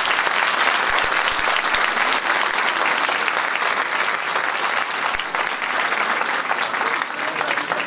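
Audience and cast applauding together: a steady, dense round of clapping that eases slightly near the end.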